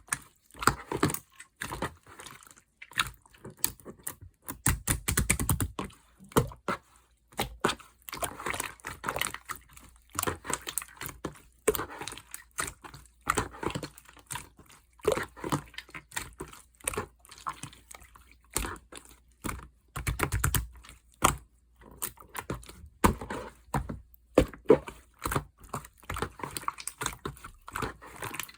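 Slime being squished, pressed and poked by hand, making dense, irregular sticky clicks and small pops, with two heavier squelches about 5 and 20 seconds in.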